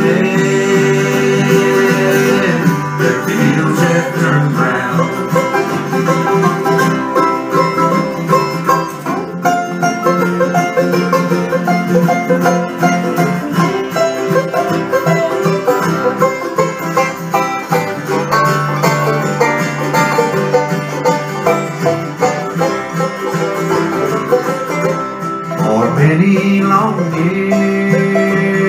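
Live acoustic bluegrass band playing: mandolins, acoustic guitar and upright bass.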